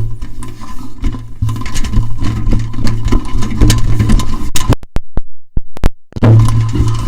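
Kite line humming through a resonator mounted on the kite reel: a steady low drone with rattling and sharp clicks. About four and a half seconds in it cuts out almost completely for about a second and a half, then comes back.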